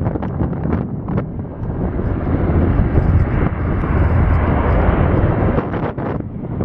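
Wind buffeting the microphone, with the Pratt & Whitney PW150A turboprops of a Bombardier Dash 8 Q400 running underneath as the aircraft moves along the runway.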